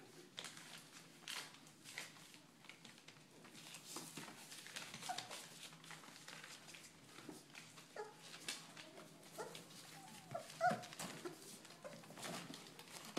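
Berger Picard puppies play-fighting: scuffling and small clicks throughout, with a few short whimpers and yips, the loudest about ten and a half seconds in.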